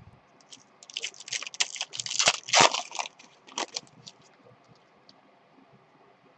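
Crinkling and rustling of a trading-card pack wrapper and cards being handled, dense for about two seconds, followed by a few sharp clicks and then quiet.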